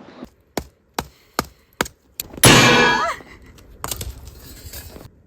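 Chopping: about five sharp knocks a little under half a second apart, then a louder burst of noise about two and a half seconds in.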